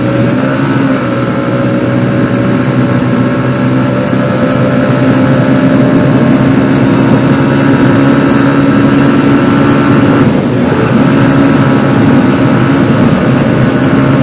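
Motorcycle engine running while riding at road speed, with the rush of wind and road noise; it grows a little louder over the first few seconds, then holds steady.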